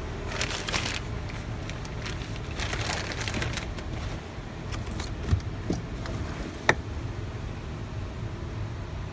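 Clear plastic bag crinkling in a hand in two bursts over the first few seconds, then a few light knocks, the sharpest about seven seconds in, over a steady low rumble.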